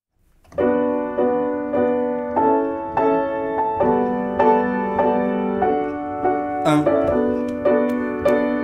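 Upright piano playing a song intro: steady repeated chords, a little under two a second, coming in about half a second in. A brief rising swish sounds near seven seconds.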